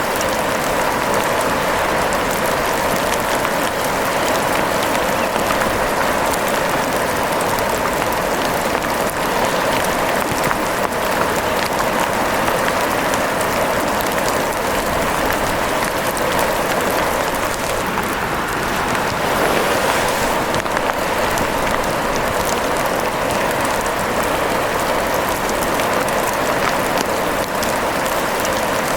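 Steady rain falling, a dense, even hiss of many small drops that does not let up.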